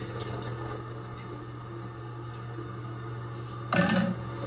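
Water from a bidet attachment's spray nozzle spattering into a plastic tub held over the toilet seat during a test of the spray, over a steady low hum. A brief louder knock comes near the end.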